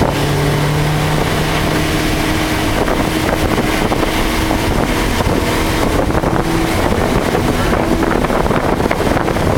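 Car engine running hard on a lapping car, heard from inside the cabin, with its pitch shifting as the revs change. Heavy wind and wet-road tyre noise run under it.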